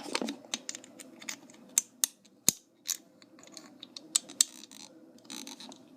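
Irregular small clicks and scrapes of a toy gun's tip being twisted and poked in the keyhole of a toy handcuff, trying to pick the lock. The sharpest click comes about two and a half seconds in.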